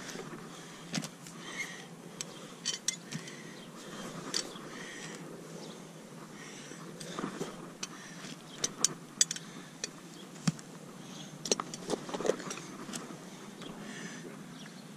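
Hoof nippers biting and clicking against a mule's hoof sole, with light metal clinks, as the sole is pared down in search of an abscess. Short, sharp snips come at irregular intervals, more often in the second half.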